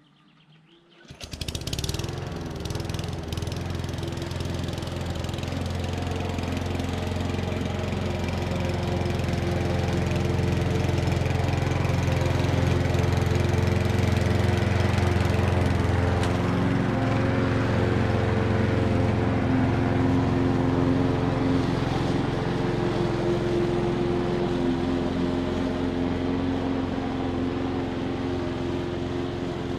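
Hecht walk-behind lawn mower's engine starting about a second in, then running steadily while mowing. It grows louder as the mower comes near and eases off as it moves away.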